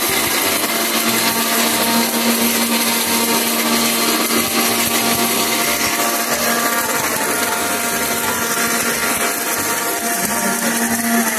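Bajaj electric mixer grinder running at speed, grinding whole garam masala in its steel jar: a steady, loud motor whine with grinding noise. Its pitch dips briefly near the end.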